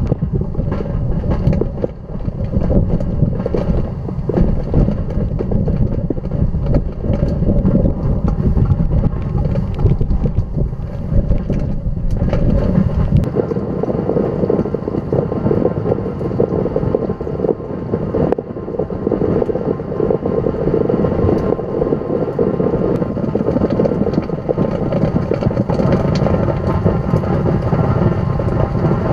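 Tornado winds blasting a ground probe's microphone: a loud, unbroken rush with many quick ticks of rain and debris striking the probe. About thirteen seconds in, the deepest rumble drops away and the rush turns higher-pitched.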